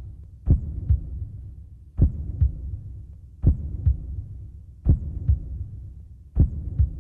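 Slow heartbeat sound effect: five double thumps (lub-dub), one pair about every one and a half seconds, over a low steady hum.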